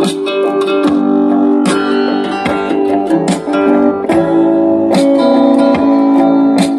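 Acoustic guitar music, plucked and strummed notes in a steady flow.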